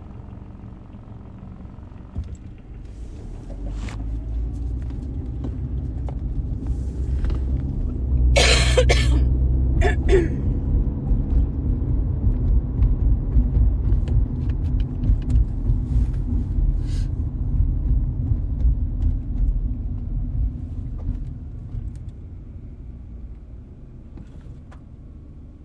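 Car road and engine rumble heard from inside the cabin, swelling as the car picks up speed and easing off near the end. About eight seconds in, a person coughs hard, followed by a shorter cough about two seconds later.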